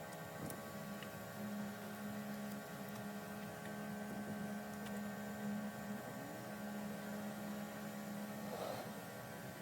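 A steady low hum with several faint steady tones above it, dropping out briefly a few times, and a short rustle near the end.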